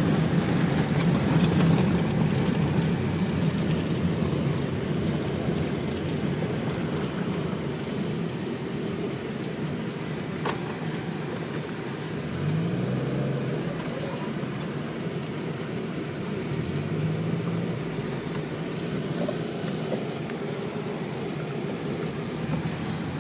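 Car engine and road noise heard from inside the cabin while driving, with a steady hum. The engine pitch rises twice, once about halfway through and again a few seconds later.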